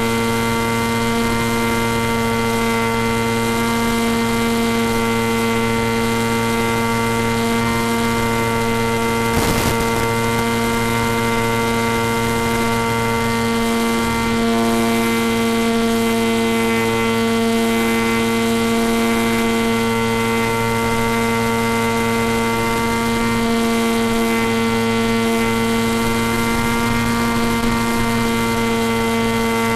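Electric motor and propeller of a small FPV model plane running at steady throttle: a constant droning hum with a whine above it. There is a single brief click about nine and a half seconds in.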